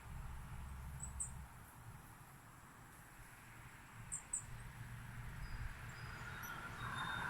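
Faint, short high chirps of small birds, a few scattered notes, over a low background rumble, with a rushing noise building near the end.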